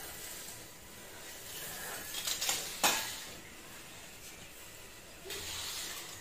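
Cloth rubbing and scrubbing over a granite kitchen countertop as it is wiped, with items on the counter shifted about. A sharp knock of something set down on the counter comes just under three seconds in.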